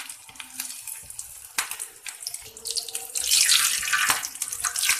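Shami kabab sizzling in hot oil on a flat iron tawa, the sizzle swelling much louder about three seconds in as the spatula works under the kabab. A sharp click about a second and a half in.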